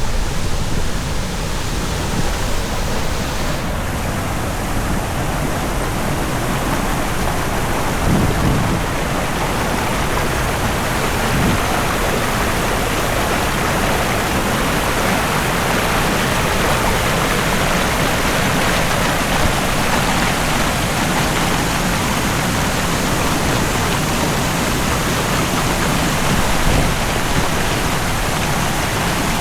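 Steady, loud rush of river water pouring over the man-made waterfall.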